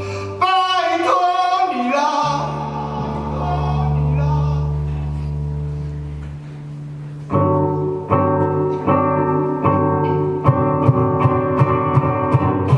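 Live band playing a song with guitars and singing: a held, sustained passage with a long low bass note, then the full band comes back in about seven seconds in, with regular percussion strikes from about ten seconds on.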